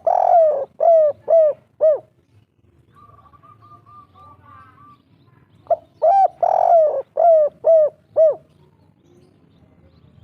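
Spotted dove (tekukur) cooing its 'kuk 3' song, delivered as two phrases of several falling coos. Each phrase has one longer, drawn-out coo near the start and is followed by shorter coos. The second phrase begins about six seconds in.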